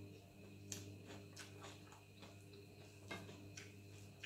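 Faint eating sounds: a bite being chewed with a few soft, irregular mouth clicks, over a steady low hum.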